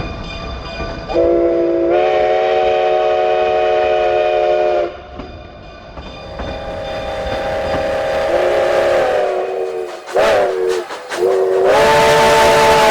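Narrow-gauge K-36 steam locomotive's chime whistle blowing a chord: two long blasts, a couple of short toots, then a long blast, the pitch sliding up slightly as each blast builds. Toward the end a loud steam hiss joins the whistle as the engine gets under way.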